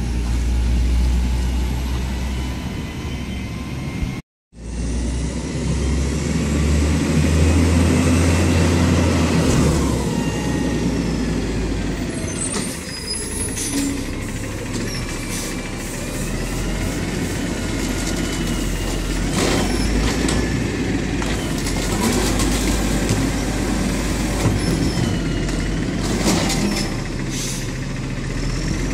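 Peterbilt 320 garbage truck with an Amrep Octo automated side loader, its diesel engine running as it works the curb and rolls up the street. Air brakes hiss and short knocks and clanks come through in the second half, along with a wavering whine. The sound drops out briefly about four seconds in.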